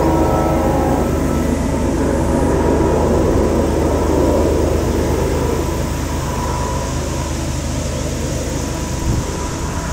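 GE Evolution-series (GEVO) diesel locomotive, a GE ES44DC, working under load as it departs, its engine giving a low, steady chug. A multi-note Nathan K5LLA air horn chord from the lead unit ends about a second in.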